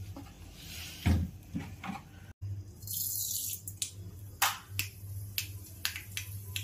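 Oil heating in a hot, nearly empty wok (kadai), crackling with sharp pops through the second half over a steady low hum. A single knock comes about a second in.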